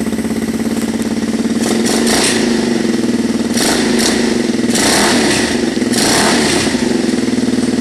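Old four-wheeler (ATV) engine running just after a cold start, having sat unstarted for about a week. Its sound swells three times, about two, four and five and a half seconds in.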